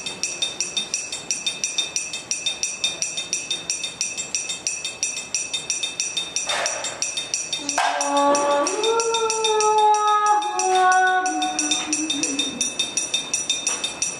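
Small metal jingles shaken in a fast, steady rhythm of about six shakes a second, ringing high and bright. In the middle a voice sings a few long, slowly falling notes over them.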